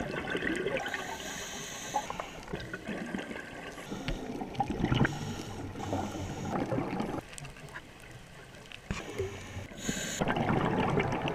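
Underwater sound picked up through a camera's waterproof housing: water noise with irregular crackling clicks and gurgling bubble bursts from scuba regulator exhaust.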